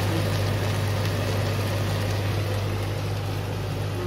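Mixed vegetables sizzling in a nonstick frying pan on an induction hob, an even steady frying hiss over a steady low hum.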